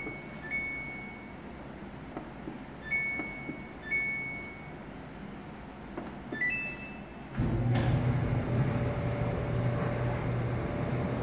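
Samsung electric dryer's control panel beeping at several button presses, then a short rising two-note chime. About a second later the dryer's drum motor starts and runs with a steady hum.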